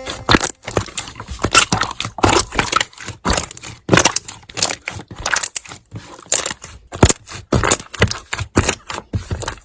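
Slime being squeezed and worked by hand, giving a fast, irregular run of sharp pops, clicks and crackles.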